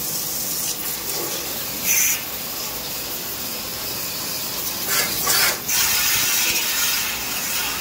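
Pressure-washer water jet hissing steadily as it sprays the ice-covered finned evaporator coil of a freezer, washing off the built-up ice. The hiss swells briefly about two seconds in and again around five seconds.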